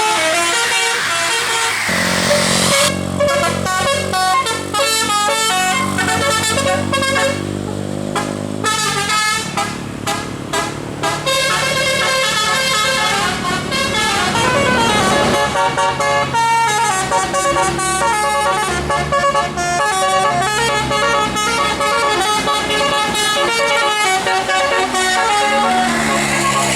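Bus telolet musical air horns playing a fast tune of short stepped notes, with the bus's engine running underneath from about two seconds in.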